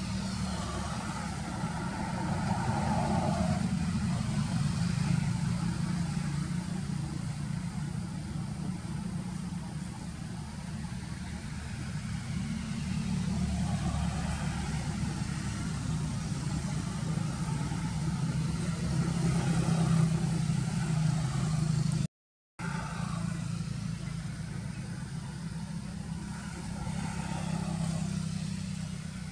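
Steady low rumble of motor traffic that swells and fades as vehicles pass, with faint voices. The sound cuts out completely for about half a second some 22 seconds in.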